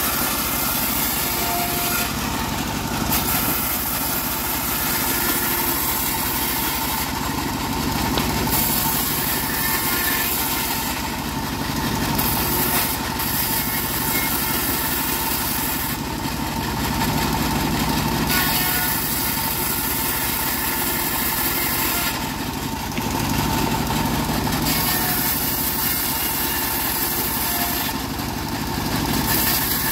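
Homemade bandsaw sawmill running steadily while its blade rips dry acacia boards into strips. The high cutting hiss drops briefly every few seconds, between passes of the wood.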